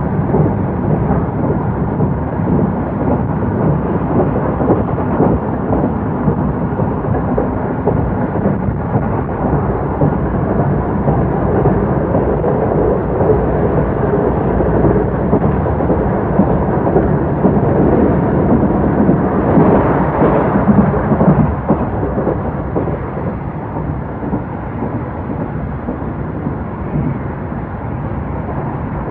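Running noise heard inside an old-type Japanese passenger coach hauled by an electric locomotive: a steady, loud rumble of wheels on rail. It swells for a couple of seconds about two-thirds of the way through, then settles a little quieter.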